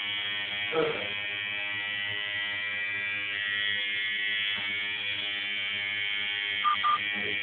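Electric tattoo machine buzzing steadily with the needle running. A brief louder sound comes about a second in, and two short ones come near the end.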